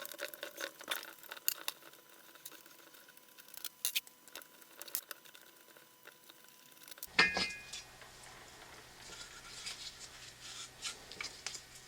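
Faint clicks and taps of tools and metal heater parts being handled while unbolting, with a sharper metallic clink that rings briefly about seven seconds in.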